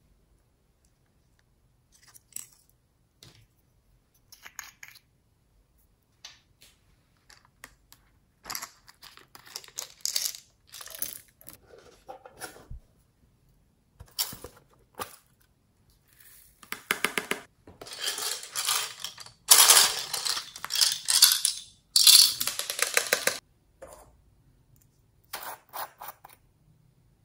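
Small plastic toy containers being handled, with clicks and taps, and beads and sprinkles rattling as they are shaken out onto the slime. The rattling is loudest and nearly continuous for several seconds past the middle, with a short burst near the end.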